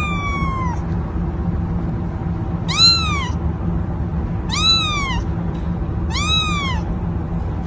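A cat meowing four times, one call every second and a half or so, each rising then falling in pitch. The first meow is ending just as the clip opens. A steady low hum runs underneath.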